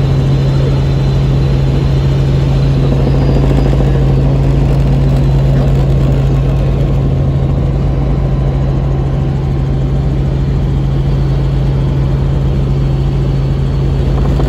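Helicopter in flight: a loud, steady drone of rotor and engine with a strong constant low hum underneath.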